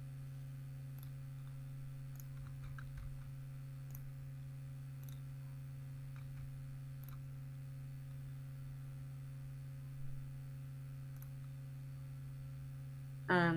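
Steady low electrical hum picked up by the recording microphone, with a few faint, short computer mouse clicks.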